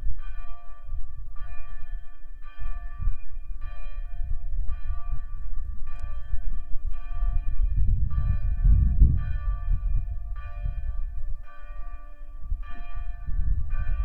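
A church bell rung over and over at a steady pace, about two strikes a second, each strike ringing with several overlapping tones. Beneath it runs a low, uneven rumble, loudest around the middle.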